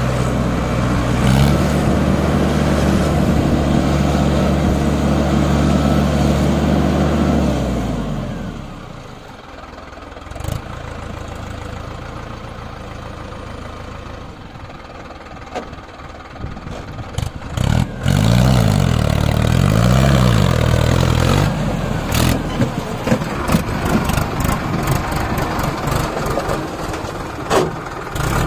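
Mahindra Arjun 555 DI tractor's diesel engine running hard at steady high revs while working through water, then easing off about eight seconds in. Later the engine revs rise and fall repeatedly, and near the end a run of short knocks and clatter sounds.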